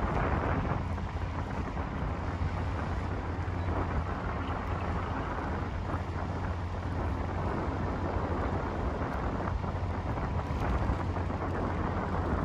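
Wind buffeting the microphone: a steady low rumble with a rushing hiss over it.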